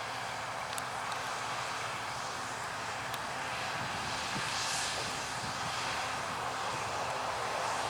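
Claas Lexion 750 combine harvester running steadily as it harvests, an even rushing machinery noise that swells slightly a little past the middle.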